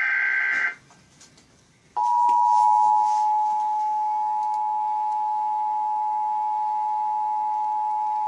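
Emergency Alert System broadcast signal: the tail of a burst of digital data-header warble, then from about two seconds in the steady two-tone attention signal, two high pitches sounding together without a break. It heralds the tornado warning read out just afterwards.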